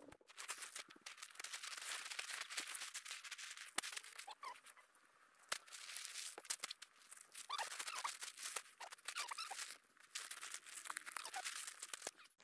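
Tent fabric rustling and crinkling as the tent is folded up, coming and going in stretches with a few sharp clicks and brief pauses.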